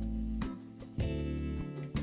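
Instrumental background music with plucked, guitar-like chords struck about every half second.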